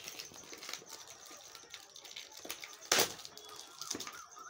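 Plastic packaging of a car phone holder being handled and pulled at to open it: scattered crinkles and clicks, with one sharp loud crackle about three seconds in.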